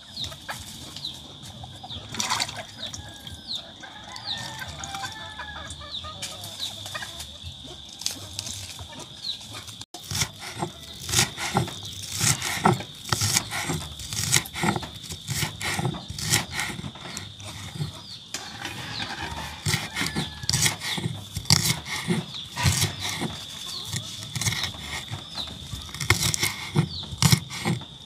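Chickens clucking, a quick run of short clucks from about ten seconds in, over a steady high-pitched drone.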